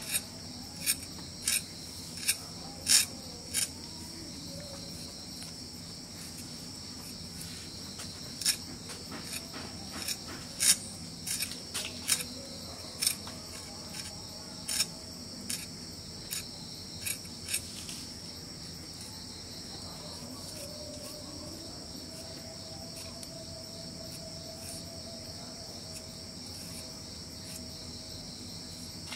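Crickets chirring steadily in a continuous high-pitched drone. Over it, through the first half or so, come irregular sharp clicks of a knife cutting and peeling vegetables by hand, about twenty in all.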